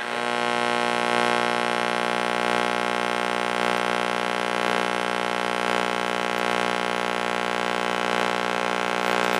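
Vintage 1962–63 Plymouth AM push-button car radio putting out a steady, even buzz through its speaker, with no station audio coming through.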